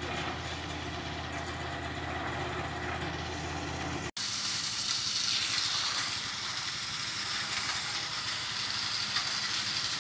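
Portable drum cement mixer's small engine running steadily, still working after the mixer fell over. About four seconds in it cuts off abruptly, giving way to a steady hiss.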